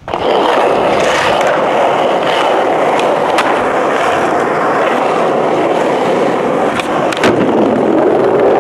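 Skateboard wheels rolling over the ground at speed, a loud, steady rumble with a few sharp clicks along the way.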